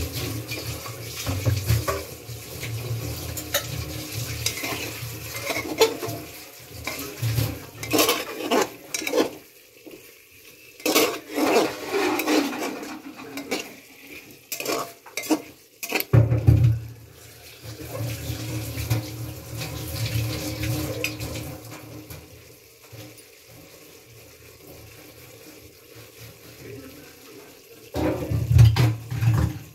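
A metal ladle scraping and clinking against the inside of an aluminium pressure cooker as a thick curry is stirred, in scattered irregular strokes. A loud low thump comes near the end.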